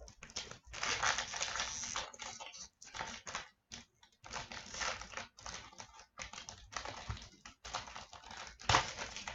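Crinkling, tearing and rustling of a sealed trading-card pack's wrapper being worked open by hand, with clicks and rustles from the cards inside; the pack is hard to open.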